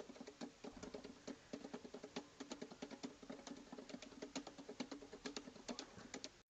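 Faint, irregular light tapping, a few taps a second.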